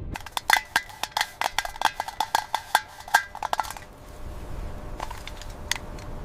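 A rapid run of sharp clicks and clinks with a slight ring, about six a second for three and a half seconds, then a few scattered clicks near the end.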